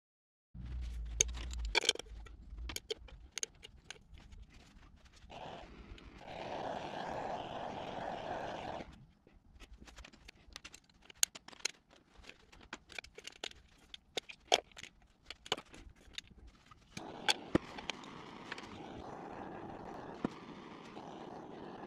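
Wax crayons clicking and tapping against one another and against a round aluminium tin as they are packed upright into it by hand, with a few sharper knocks. Two stretches of steady rushing noise come in under the clicks, one from about five to nine seconds in and one starting about seventeen seconds in.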